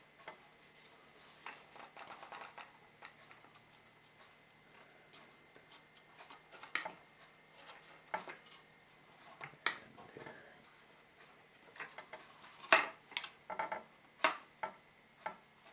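Light clicks and taps of balsa wood model parts being handled and fitted together by hand, with some soft rustling; a cluster of sharper knocks comes near the end.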